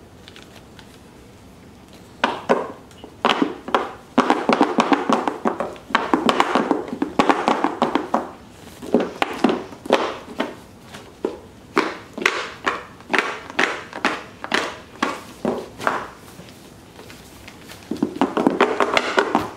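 A small wrapped gift box being shaken by hand, its contents rattling and knocking inside in quick irregular runs, with a short pause before a last burst near the end.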